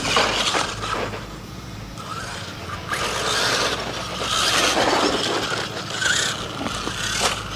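Radio-controlled monster truck driving on a dirt track: motor and drivetrain running in surges with tyres churning, and scattered knocks from the chassis bumping and landing.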